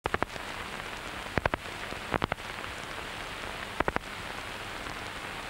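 Steady hiss of an old film print's soundtrack, broken by four quick groups of about three sharp clicks each, spaced roughly a second apart.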